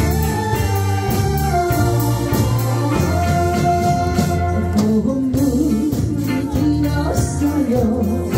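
Live band playing a Korean trot song: a female vocalist singing over drum kit, electric guitar, bass guitar and a keyboard with an organ sound.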